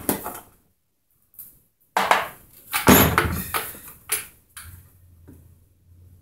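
Chainsaw housing knocking and clattering against a plastic drain pan as it is handled and shaken out over it, in a couple of bursts of knocks; a faint low hum follows near the end.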